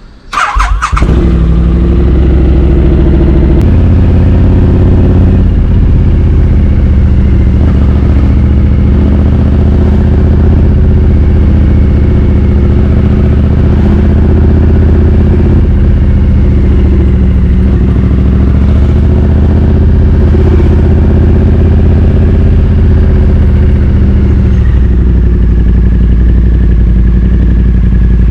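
Triumph Street Twin 900's parallel-twin engine, breathing through British Customs slash-cut exhaust tips, starting under a second in and then idling steadily and loudly at an even pitch.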